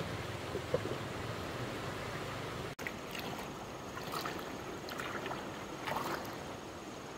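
Steady rush of stream water, broken by a brief dropout a little under three seconds in, then a few short sharp sounds in the second half.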